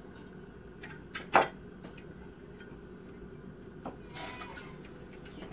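Cooking sounds at a metal pot as dried fish goes in on top of chopped vegetables: a few light clicks, one sharp knock about a second and a half in, and a brief rustle or scrape around four seconds in. A steady low hum sits underneath.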